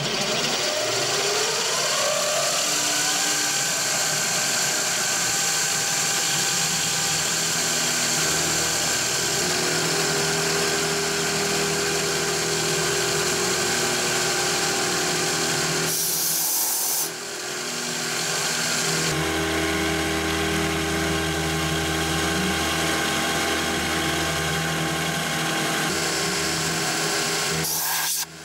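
SIEG CNC milling machine's spindle spinning up with a rising whine, then an end mill cutting plastic composite decking: a steady machine whine over a hiss of cutting noise. It briefly dips about two-thirds of the way through and again near the end.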